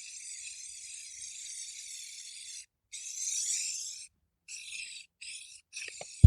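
Aerosol spray paint can hissing: one long spray of about two and a half seconds, then a second spray of about a second, then three short bursts with brief pauses between. A brief low thump, the loudest sound, right at the end.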